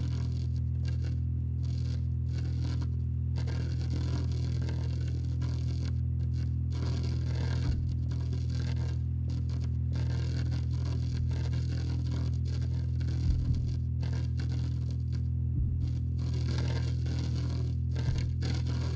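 Film sound-design ambience: a steady low droning hum under crackling, static-like noise that keeps cutting in and out. A few soft low thumps, the loudest about two-thirds of the way through.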